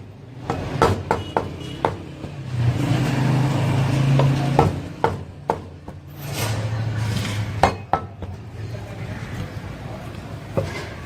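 Knife knocking against the cutting board in scattered sharp taps while a whole chicken is deboned, over steady street-market background noise. A low hum swells twice in the background.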